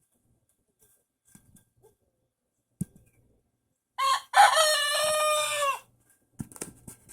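A young rooster crowing once, still finding his crow: a short first note, then one long held note that falls away at the end, about two seconds in all.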